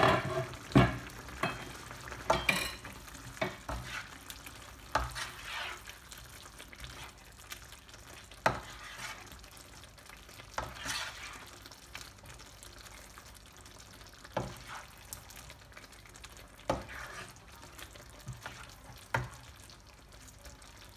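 Beef and tomato masala sizzling in a frying pan while a spoon stirs and scrapes through it. The strokes are irregular: frequent in the first few seconds, then about one every two seconds. The sauce is thick, its tomato juices cooked down.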